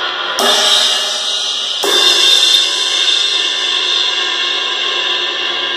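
A 20-inch Paiste dark crash cymbal struck twice with a stick, about a second and a half apart, the second hit louder. Each hit leaves a long ringing wash that fades only slowly.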